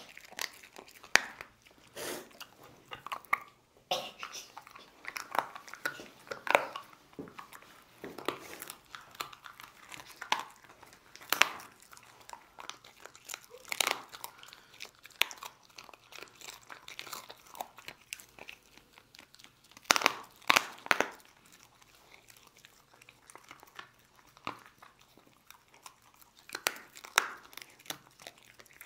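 A dog crunching and chewing dried kangaroo ribs: irregular sharp crunches with short pauses between bites, with a run of the loudest crunches about two-thirds of the way in.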